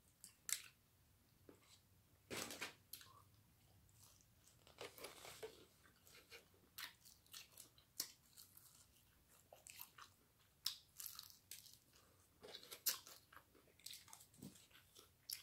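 Close-up eating of fried chicken and fries: irregular soft crunches and bites with chewing between them, a few of them sharper and louder.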